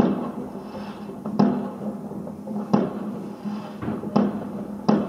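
Aerial firework shells bursting: a series of sharp bangs, about one every second, each trailing off in an echoing rumble.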